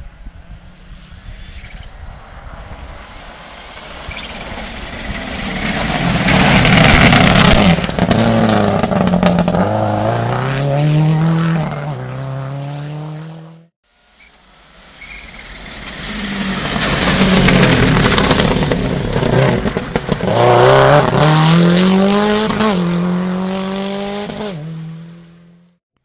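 Two rally cars, one after the other, each coming up a dirt stage at full throttle and passing: engine pitch climbs and drops again with each upshift, over a loud rush of tyre noise at the closest point. The sound cuts out sharply about halfway through before the second car is heard building up.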